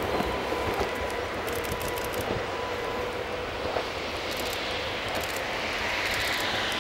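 Train running along the line: a steady rumble of wheels and motors with a faint steady whine, growing a little brighter near the end.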